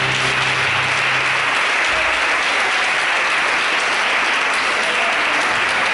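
Church congregation applauding steadily. A low steady tone from before fades out about a second and a half in.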